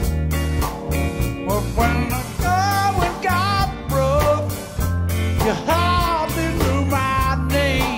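A band rehearsing with drums, bass and Hammond organ under a lead melody that bends and wavers in pitch.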